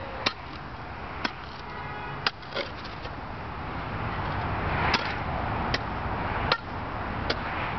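Steel shovel blade being driven into hard, compacted ground: sharp chopping strikes, roughly one a second, as the ground resists the digging. A steady background rush runs underneath, louder in the second half.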